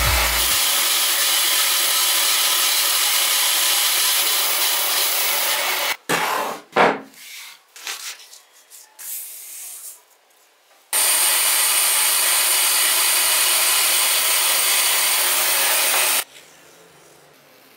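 Band saw cutting through a thick block of wood, a steady noise that stops about six seconds in. A sheet of paper is handled and rustles briefly, then the band saw cuts wood again for about five seconds and stops near the end.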